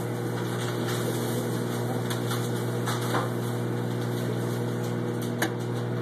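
Microwave oven running with a steady electrical hum, a marshmallow heating inside; a single sharp click about five and a half seconds in.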